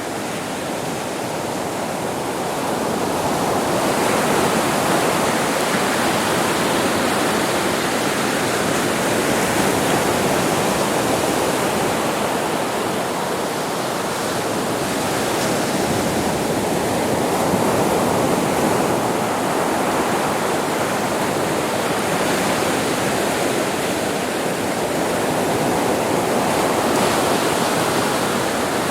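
Ocean waves breaking on a beach: a continuous rush of surf that swells and eases every several seconds.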